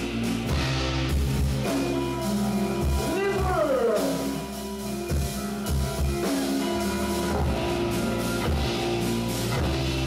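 Rock band playing live: a strong electric bass line and guitar over a drum kit, with a sliding note that falls in pitch about three seconds in.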